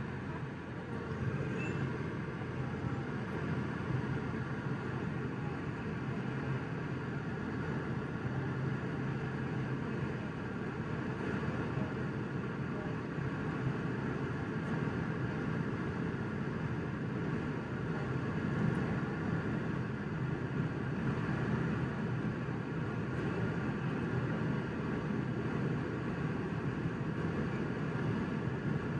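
Jet airliner climbing out after takeoff, heard from inside the cabin: a steady, low rush of engine and airflow noise with a faint high hum.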